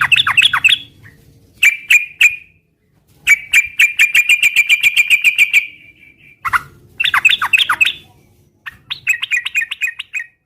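Yellow-vented bulbul (trucukan) singing vigorously in short bubbling phrases of rapid notes, separated by brief pauses, with one longer chattering trill from about three to nearly six seconds in.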